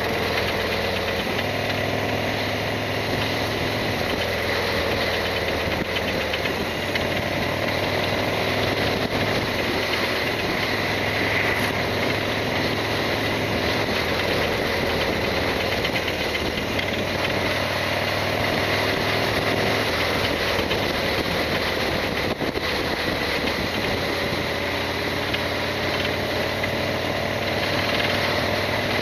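Harley-Davidson Sportster XL1200R's V-twin engine running steadily, its pitch rising and falling slightly.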